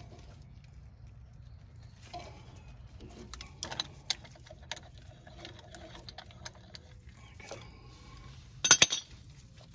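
Metal clinking from a C-clamp being worked and taken off a brake caliper, where it pushes the caliper piston back through an old brake pad: a few light clicks, then a loud metallic clatter near the end.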